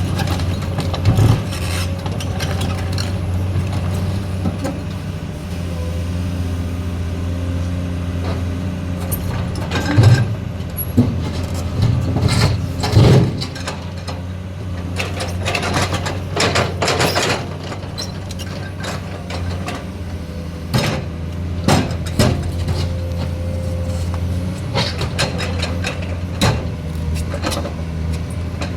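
Excavator's diesel engine running steadily, with irregular clanks and knocks from loading a trailer.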